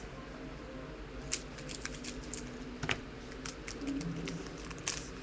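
Trading cards being handled and peeled apart: scattered light clicks and snaps of card stock, over a faint steady hum.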